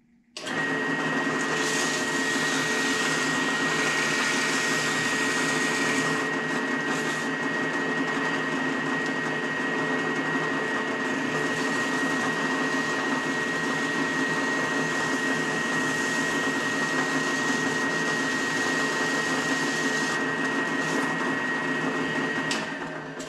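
Drill press running steadily with a constant high whine, spinning a bushing chucked in it while sandpaper is held against it to finish it to size. The motor starts about half a second in and winds down near the end.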